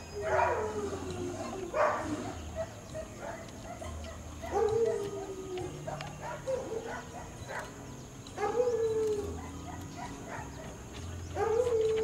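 Belgian Malinois detection dog giving short whining yelps, each falling in pitch, about six in all, a second or two apart.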